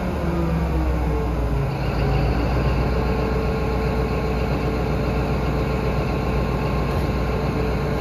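Cat 854G wheel dozer's diesel engine running. Its pitch falls over the first couple of seconds as it slows, then it settles into a steady run.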